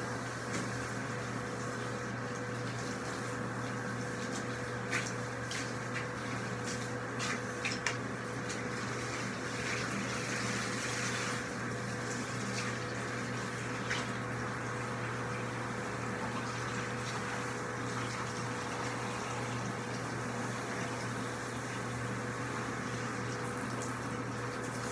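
Water running steadily into a bathtub from the tap and shower hose, with a steady hum under it and a few light knocks.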